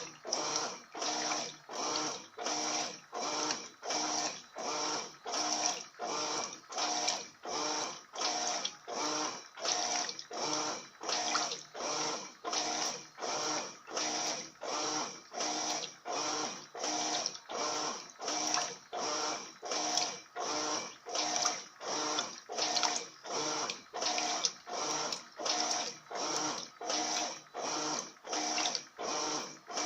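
Electrolux LF80 top-load washing machine agitating a load of sheets in deep water: each swish of the agitator comes as a regular pulse, about three every two seconds, with the motor humming on each stroke.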